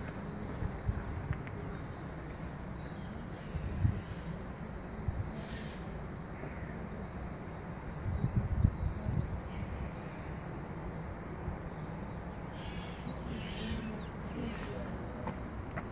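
Outdoor ambience: small birds chirping, with quick repeated high chirps near the start and again near the end and a few other calls in between, over a low, uneven wind rumble on the microphone.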